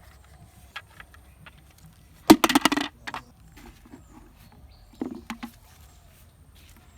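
Handling noise from plastic toys: scattered light clicks and rustling, a sharp clatter a little over two seconds in, and a softer knock about five seconds in.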